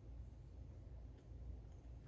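Quiet room tone with a low steady hum and one faint tick about a second in.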